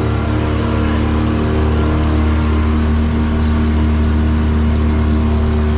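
An engine running at a steady speed: a low, even hum with a steady whine above it.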